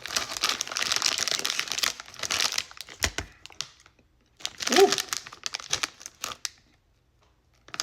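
Plastic candy packet crinkling as it is handled, in two spells, with a low knock about three seconds in. A short voiced sound, like a murmur, comes in the second spell.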